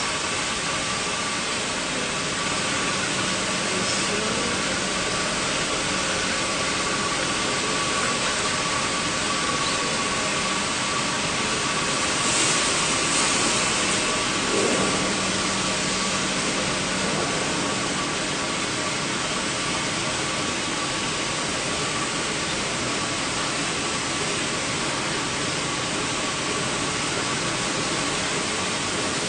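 OUYIGANG 1250-type stainless steel sheet mirror-finish polishing machine running: a steady hiss with a steady humming tone through it, briefly louder and brighter about twelve seconds in.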